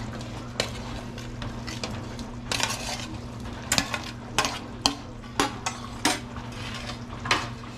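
A spoon stirring and scraping through a pan of simmering pork mechado as fried potatoes and carrots go in, with a string of clinks and scrapes against the pan over light sizzling and a low steady hum.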